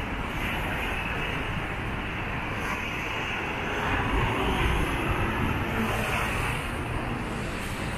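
Steady road traffic: cars and trucks passing on a multi-lane avenue, a little louder around the middle.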